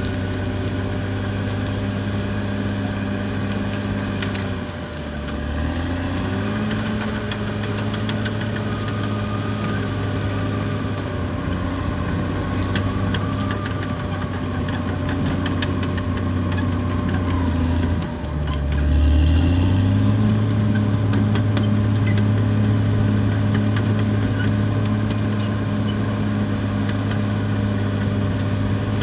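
Caterpillar D6R XL bulldozer's six-cylinder diesel engine running steadily at working revs, with scattered light clanks. Its pitch drops briefly twice, about five seconds in and again near eighteen seconds, then comes back up.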